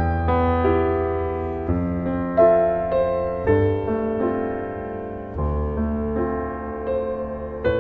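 Background piano music: slow, gently decaying chords over a low bass note, changing about every two seconds.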